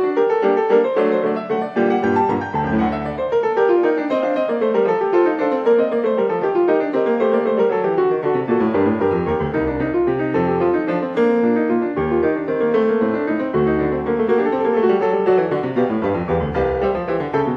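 Piano music playing fast runs of notes, many of them falling, one after another.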